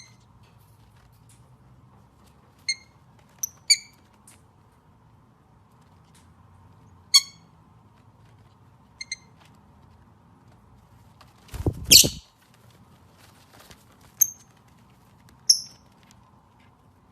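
A parrot giving short, high squeaks and chirps, about nine spread out with gaps between them, and one louder, harsher squawk about twelve seconds in.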